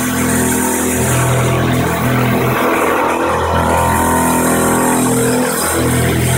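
CNC mini mill with stepper-driven axes cutting a round hole in a metal plate with an end mill: a steady machine hum from the spindle and steppers, with tones that shift every second or so as the axes move around the circle. There appears to be some chatter right as the X-axis reverses.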